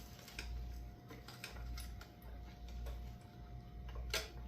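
Quiet scattered clicks and ticks of small handling, with two sharper clicks near the end, over a faint low hum and a thin steady whine.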